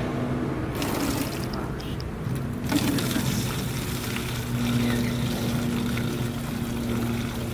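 Hot engine coolant draining from a 2nd-generation Prius's coolant heat storage tank, pouring steadily through a funnel into a plastic gallon jug. A steady low hum runs underneath.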